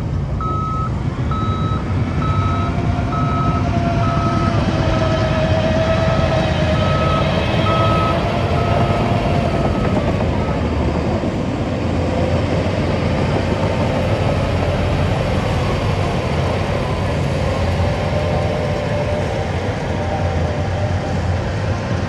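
Diesel engines of SHANTUI crawler bulldozers running and changing pitch under load as they push dirt. A reversing alarm beeps evenly, about three beeps every two seconds, and stops about ten seconds in.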